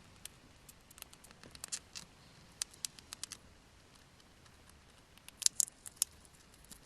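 A hamster gnawing and crunching a snack: irregular sharp little clicks and cracks in two flurries, the loudest about five and a half seconds in.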